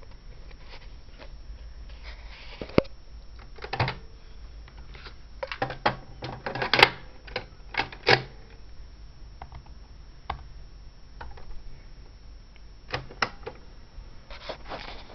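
Sharp, irregular plastic clicks and clacks of a compact cassette and a portable cassette player being handled as the tape is loaded and the player's controls worked, loudest around the middle.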